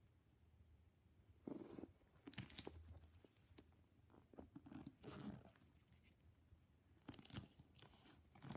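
Faint, scattered rustles of duct tape being folded over on itself and pressed flat by hand.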